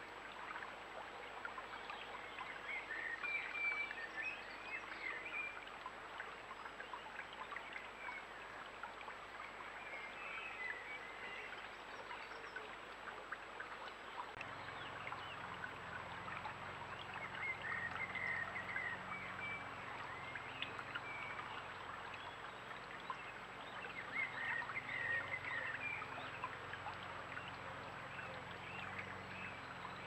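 Shallow stream running and trickling steadily over a stony bed, with short snatches of bird song about four times.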